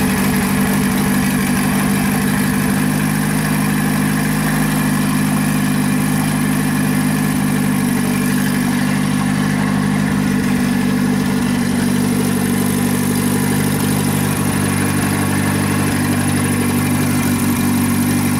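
Turbocharged car engine idling steadily just after being started, with an even, unchanging note.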